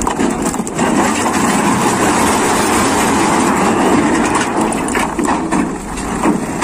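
Dump truck tipping a load of large rocks: the stones slide and clatter out of the raised bed, with the truck's engine running.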